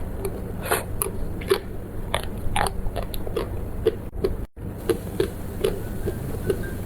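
Close-miked eating: irregular bites and crunches with wet chewing clicks and smacks. The sound cuts out briefly about four and a half seconds in.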